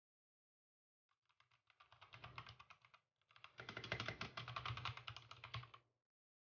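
Typing on a Drop SHIFT mechanical keyboard: a quick run of key clicks starting about a second in, a short pause around three seconds, then a louder, denser flurry of keystrokes that stops near the end.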